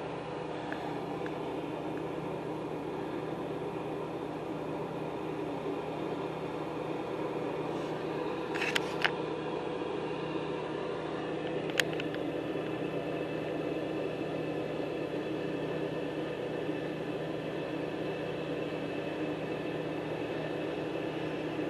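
Chainsaw running steadily, cutting into a tree being felled, with a few short sharp clicks about 9 and 12 seconds in.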